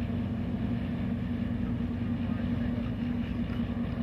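An engine running steadily, a constant low hum at one pitch.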